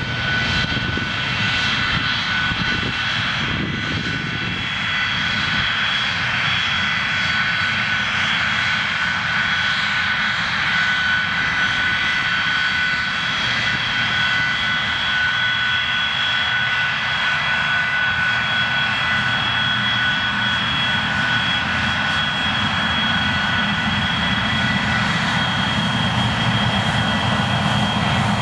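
Boeing 737-200's Pratt & Whitney JT8D turbofans running at low power as the jet taxis past: a steady jet whine with several high held tones over a low rumble, growing slightly louder near the end.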